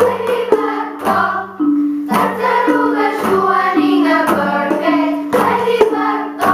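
Children's class ensemble singing a song, accompanied by glockenspiel and recorders, with sharp percussive strokes on a steady beat about twice a second.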